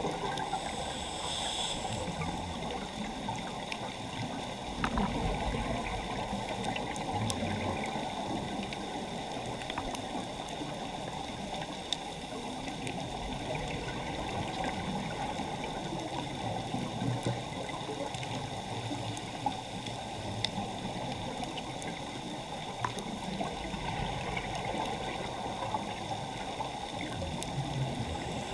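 Underwater reef ambience heard through an underwater camera: a steady watery hiss and low rumble with scattered sharp clicks, and a short high-pitched sound about a second in.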